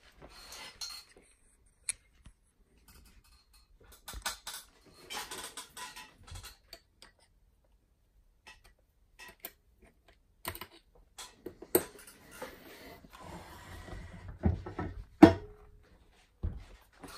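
Schaublin 70 lever-operated turret carriage being handled: scattered metal clicks, taps and clunks from its parts, with stretches of rustling and a loud knock near the end.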